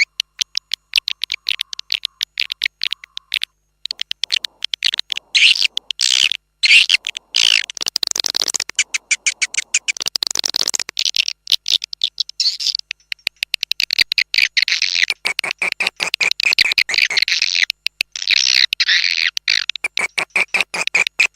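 Swiftlet call recording used as an external lure sound for swiftlet houses: fast trains of short, high chirps and twittering, with a few brief gaps.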